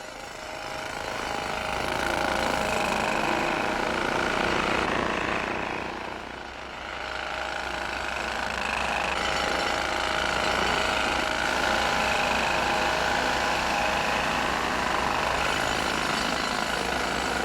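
Construction-site din: pneumatic drills hammering and heavy machinery running steadily. It swells up over the first two seconds and dips briefly about six seconds in.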